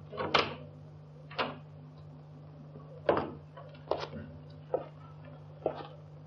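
Slow, deliberate footsteps on a hard floor, six or seven sharp steps about a second apart, over the steady low hum of an old film soundtrack.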